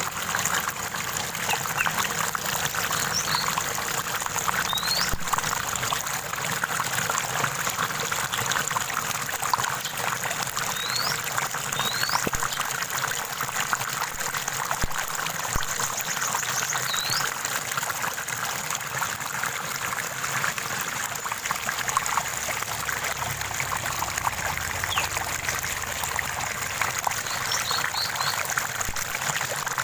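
Stream water trickling steadily, with a few short, high bird chirps now and then.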